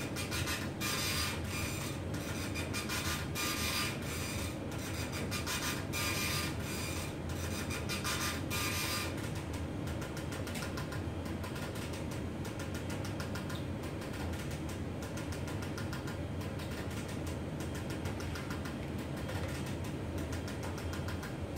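Electric baby cradle swinging at its second speed setting with a 6 kg load: a steady low hum, with repeated scratchy rubbing noises from the swinging frame that stop about nine seconds in.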